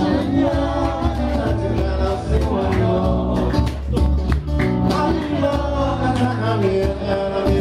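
Live acoustic band playing: a man singing over strummed acoustic guitar, with bass guitar and a cajón keeping a steady beat.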